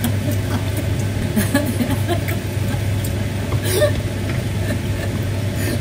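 Wooden spoon stirring risotto in a stainless steel pan, with a few light scrapes and knocks against the metal, over a steady low hum. Some laughter.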